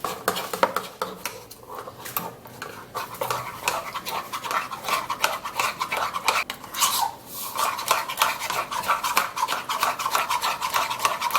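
A spoon stirring mashed banana and yogurt in a bowl: quick, repeated scraping strokes against the bowl, pausing briefly a few times.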